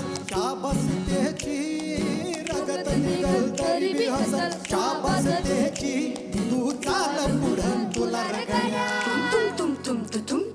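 A man singing a song live into a microphone, backed by a band with a steady drum beat. Female backing voices join near the end.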